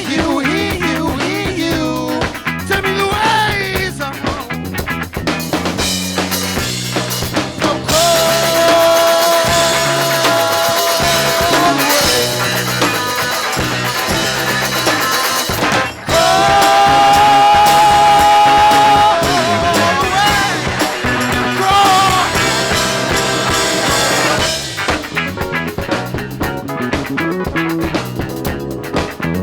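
Live rock band playing with drums, bass and guitars. A lead line holds long high notes twice, about a third of the way in and again just past halfway, and the band drops back to a lighter passage near the end.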